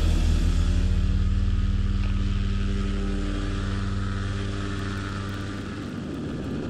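Paramotor engine and propeller running at full power for takeoff, a steady drone that eases a little about five seconds in.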